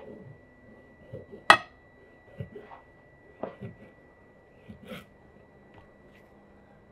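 Kitchen knife cutting into a whole fish on a wooden cutting board: a run of irregular soft scrapes and taps, with one sharp knock about one and a half seconds in.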